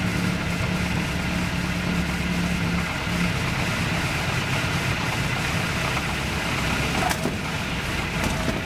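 Piper J-3 Cub's engine throttled back to idle during landing and rollout, with propeller and wind noise in the open cockpit; the engine note drops about three seconds in. A few light knocks near the end.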